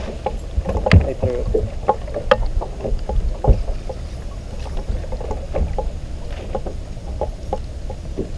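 Water lapping against a bass boat's hull, with scattered light knocks and clicks on the boat, about a dozen of them, sharpest in the first four seconds.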